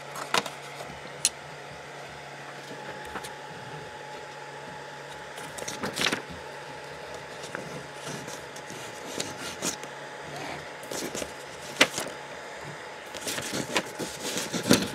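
A sheet of paper being slid and rubbed under a 3D printer's nozzle during the paper-drag bed-levelling test, with a few sharp clicks and a steady faint hum. The rustling gets busier near the end.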